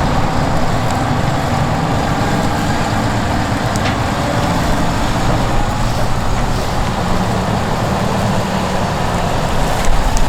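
Heavy diesel harvest machinery running steadily under load, an engine drone with a dense mechanical rumble; a brief louder knock near the end.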